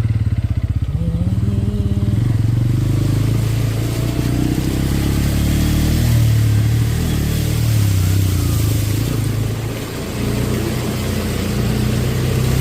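Motorcycle engine running under way, close up. Its note rises as it revs about a second in, then runs on and eases briefly before picking up again.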